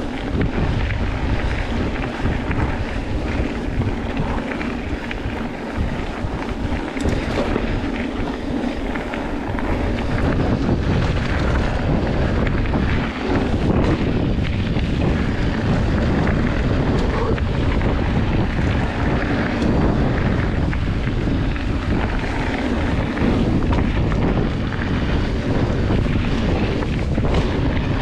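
Wind rushing over the microphone of a camera on a Trek Top Fuel full-suspension mountain bike, with knobby tyres rolling over a dirt trail and small knocks and rattles from the bike on the bumps, getting louder about ten seconds in as the descent speeds up.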